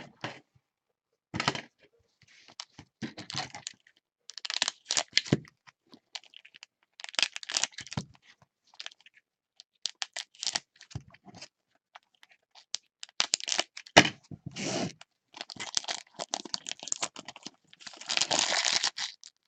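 Plastic trading-card pack wrappers tearing and crinkling in irregular bursts as packs of football cards are ripped open, with the loudest stretch of crinkling near the end.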